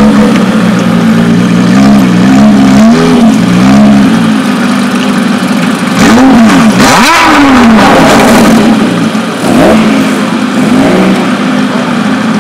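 Aston Martin One-77's 7.3-litre V12 revved loudly while standing: a run of quick throttle blips rising and falling about once a second, then one bigger, higher rev about seven seconds in, followed by a couple of smaller blips.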